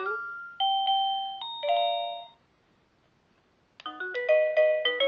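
Electronic musical doorbell chime playing tunes in plain beeping tones. A few held notes end one melody, then it falls silent for about a second and a half before the next, quicker melody starts from its built-in set of tunes.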